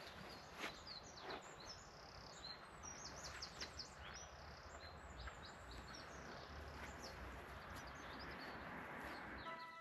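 Small birds chirping and twittering in quick runs of short high chirps, busiest in the first half, over steady faint outdoor background noise.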